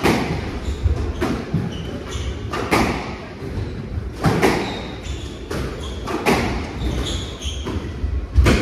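Squash rally: sharp cracks of the ball struck by racquets and hitting the walls every second or two, echoing in the hall, with short squeaks of shoes on the wooden court floor between shots.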